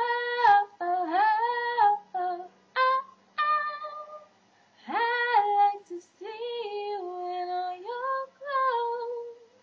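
A woman singing a cappella in short, held phrases with pitch glides, pausing briefly about four seconds in.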